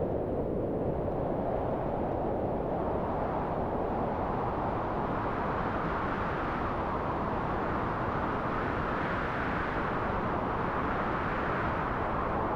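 Synthesised howling wind: filtered noise whose pitch slowly rises and falls as the filter cut-off is swept, brighter through the middle and dulling again near the end.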